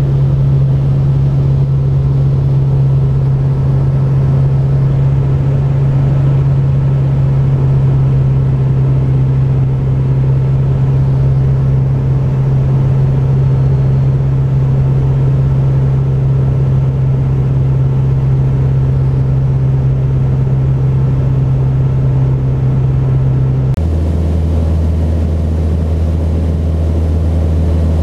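Mooney M20J's four-cylinder Lycoming engine and propeller droning steadily, heard inside the cabin. About 24 seconds in, the drone drops abruptly to a lower pitch.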